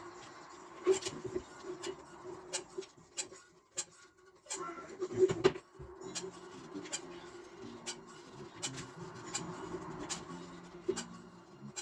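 Scraping and rubbing of hand work on a hard surface, with scattered sharp clicks and ticks over a faint low hum; the loudest cluster of clicks comes about halfway through.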